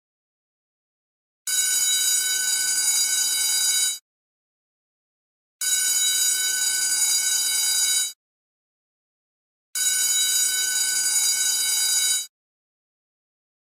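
School bell ringing in three rings, each about two and a half seconds long, with a second and a half of silence between them.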